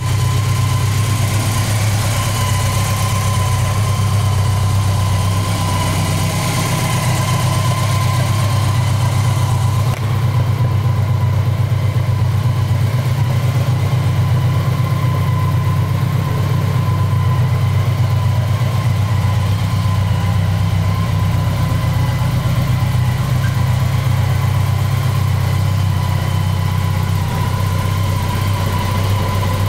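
BMW K1200LT's inline four-cylinder engine idling steadily, with a constant low hum.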